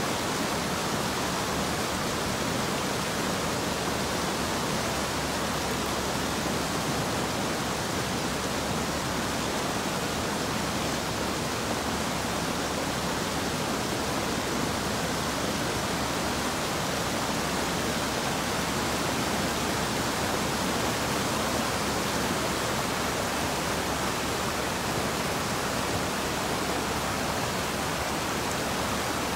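Muddy floodwater rushing steadily over rocks and debris across a road: storm runoff off the mountains after days of rain.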